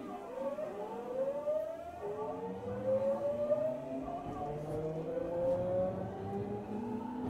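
Tokyu 9000 series electric train accelerating: its VVVF inverter whines in a series of rising tones, each new one starting lower as the pitch steps up, over a lower traction-motor hum that also climbs.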